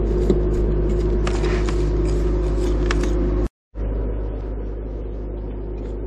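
Steady low machine hum with a held tone. It drops out for a moment about three and a half seconds in, then carries on a little quieter.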